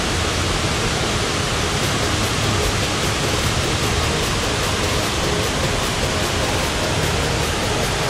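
Twin waterfall pouring into its pool: a steady, unbroken rush of falling water.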